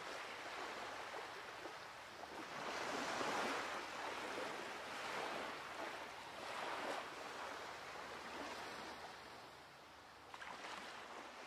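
Ocean water washing and surging around a surfboard, rising and falling in several swells.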